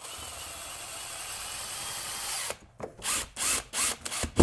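Cordless drill-driver run in a series of short bursts, driving fixings into the wall board to mount a unit. Before the drilling there is a steady hiss for about two and a half seconds.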